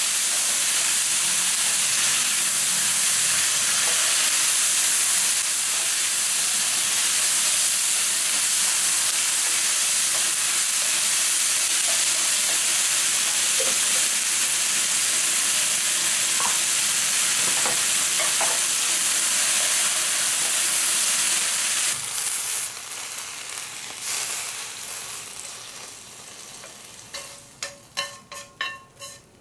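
Sauced yakisoba noodles and vegetables sizzling steadily in a frying pan as they are tossed with chopsticks. About three-quarters of the way through the sizzle drops off sharply, and near the end a quick run of clinks as chopsticks scrape the noodles from the pan onto a plate.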